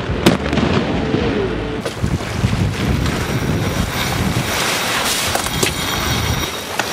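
A sharp firework bang with crackle in the first two seconds, then an abrupt change to wind buffeting the microphone and water rushing along a sailboat's hull as it sails.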